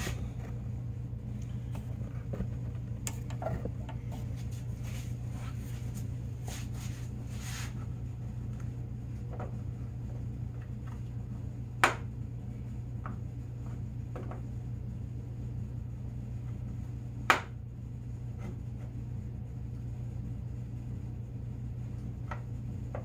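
Small clicks and knocks as plastic jerry-can holders are pressed onto a snowmobile tunnel and marked around with a pencil, over a steady low hum. Two sharper clicks stand out, one about halfway through and another some five seconds later.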